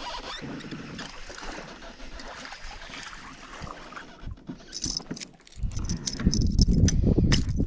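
Sounds of landing a small bass from a kayak: light water noise and clicking of tackle at first, then, from about five and a half seconds in, loud low knocking and rubbing of the fish and gear being handled against the kayak.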